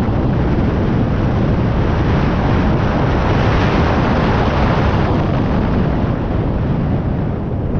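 Small fishing boat running at speed under its outboard motor: a loud, steady rush of wind on the microphone mixed with engine and water noise.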